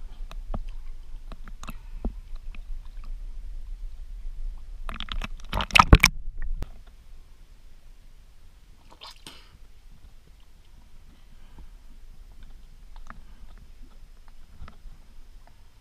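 Water sloshing and splashing against a camera held at the water's surface, with scattered clicks and knocks. A loud cluster of splashing and knocking comes about five to six and a half seconds in, followed by a brief noisy splash near nine seconds; after that only faint lapping and clicks.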